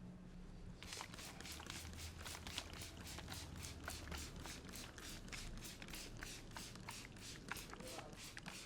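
Barber's hands working a customer's head and hair in a fast, steady rhythm during a head massage, about four brushing strokes a second, starting about a second in.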